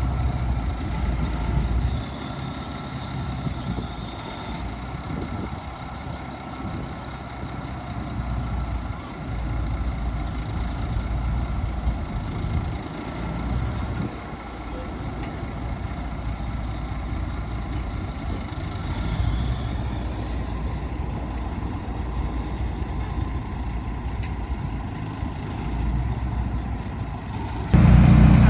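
Heavy diesel earthmoving engine running steadily, its level swelling and easing, then abruptly much louder about a second before the end.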